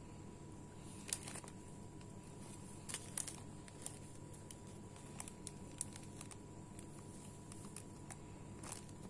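Thin clear plastic bags crinkling and crackling in short, scattered bursts as hands handle them and tie them shut with curling ribbon, over a low steady hum.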